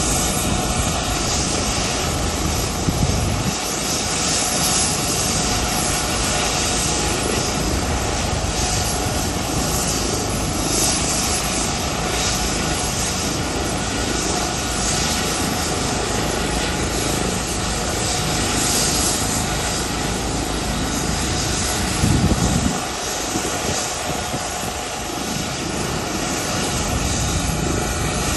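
Fire truck's water pump running with a steady, loud roar and hiss of water under high pressure, briefly surging louder about three seconds in and again near twenty-two seconds.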